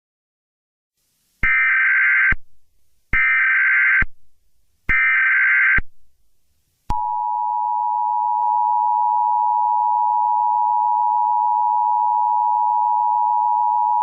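Emergency Alert System header: three short, identical bursts of SAME data tones, each about a second long, followed about seven seconds in by the EAS two-tone attention signal, which holds steady.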